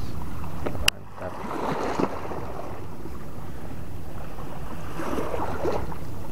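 Steady wind noise on the microphone with small waves at the water's edge. A sharp click comes about a second in, after which the noise drops and slowly builds again.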